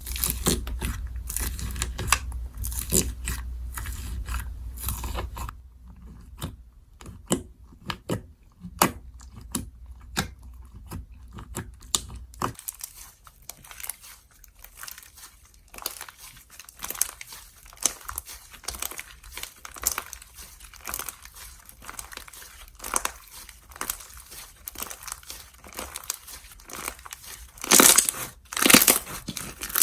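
Slime being squeezed, stretched and pressed by hand, making a steady run of sticky clicks and crackling pops, with a louder burst of crackles near the end.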